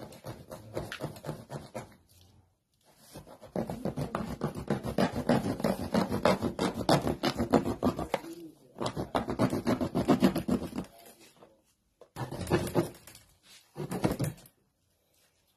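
Knife blade sawing through the thick plastic of an oil jerrycan: a rapid, crackling scrape in several bursts with short pauses between them.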